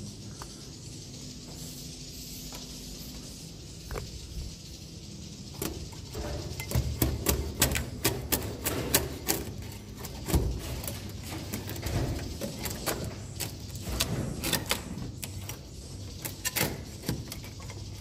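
A swiftlet-nest harvesting scraper on a pole, a metal blade over a catch net, scraping and knocking against the wooden nest planks to cut a nest loose. A steady high hiss for the first few seconds, then from about six seconds in a busy run of scrapes and clicks.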